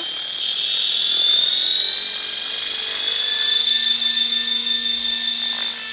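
Radio-controlled helicopter's motor and rotor running at flying speed as it lifts off and hovers: a loud, high-pitched whine that drifts slightly in pitch, with a lower hum joining about halfway through.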